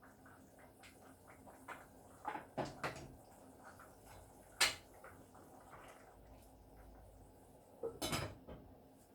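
Kitchen clatter: scattered knocks and clinks of dishes and cupboard doors being handled. The sharpest knock comes about four and a half seconds in, with a short cluster of knocks near the end.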